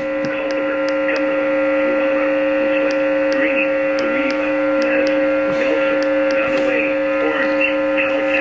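Weather radio broadcast carrying a loud, steady whine: two droning tones with a buzzy stack of overtones, cut off at the top like narrow radio audio. The noise points to a fault or bad signal on the transmitter.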